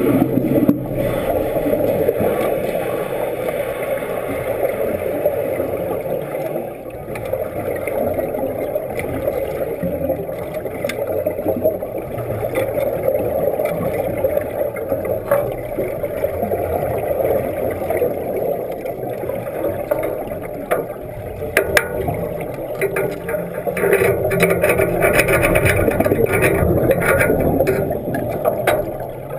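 Muffled underwater noise inside a water-filled tank: a steady rush, with crackles that grow thicker near the end as the helmeted diver comes close.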